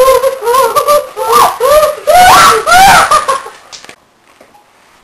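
Kids shrieking and laughing in quick, rising-and-falling squeals, very loud. They stop abruptly a little under four seconds in.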